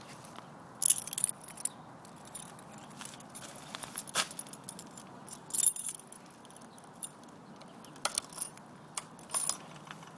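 Keys jingling and clicking irregularly in short clusters as they are handled; no engine is running.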